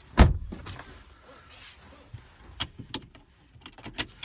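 A car door shut with a single heavy thud about a quarter second in, then a few light clicks and rustles as the seat belt is drawn across, heard from inside the cabin.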